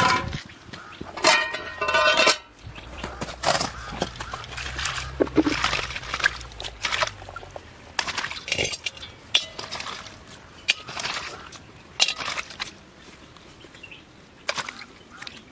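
Irregular sharp clinks and knocks of hard objects being handled, about a dozen or more, spaced unevenly.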